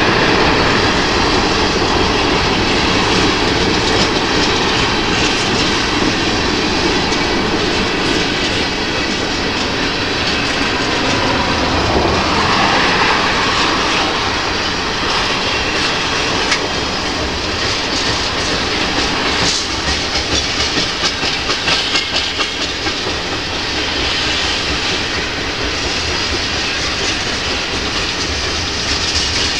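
Freight train of tank cars and covered hoppers rolling past, steel wheels running on the rails with a steady, loud rolling noise. A run of clickety-clack comes from wheels crossing rail joints a little past halfway.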